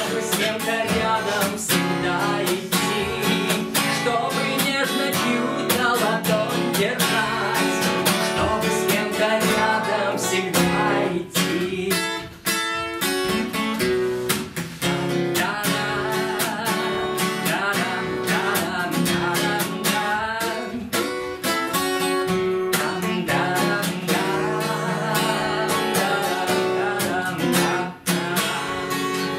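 Steel-string acoustic guitar strummed in a steady rhythm, an instrumental break in a song.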